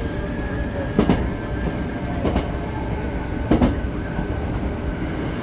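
Hankyu commuter train running, heard from inside the front car: a steady rumble with a thin steady hum, and the wheels knocking over rail joints three times about a second apart.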